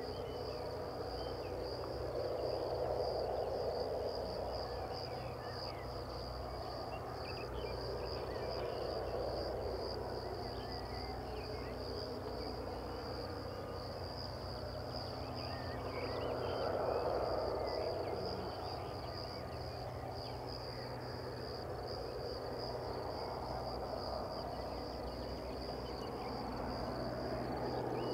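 Crickets trilling steadily and high-pitched, over a low rumble that swells and fades every several seconds.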